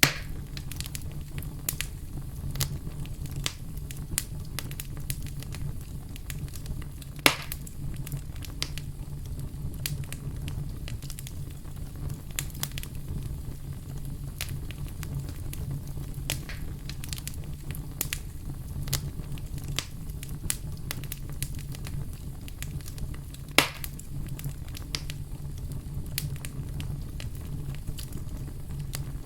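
Fire in a fireplace crackling with a constant scatter of small snaps over a steady low rumble, and two louder pops well apart.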